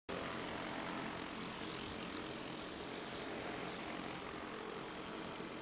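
Several racing karts' Honda 5.5 hp single-cylinder four-stroke engines running at race speed as the pack goes by, a steady drone of overlapping engine notes.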